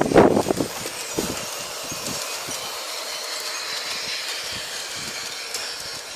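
Bachmann Big Hauler large-scale 4-6-0 model steam locomotive and its cars running past on garden track: a steady high rushing hiss from the motor, gearing and wheels on rail, swelling midway and easing off near the end. A loud low rumble comes in the first second.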